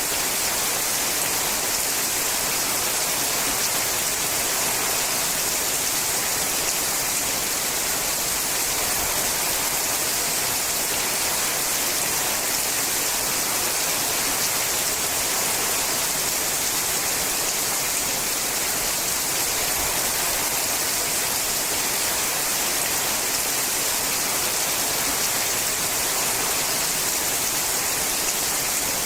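Steady rain falling on a sheet-metal roof: an even, unbroken hiss of dense drops that does not let up.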